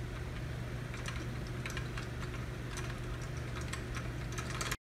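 Electric fan running with a steady low hum, blowing a wooden airplane whirligig's propellers round, with light irregular ticks over it. The sound cuts off suddenly near the end.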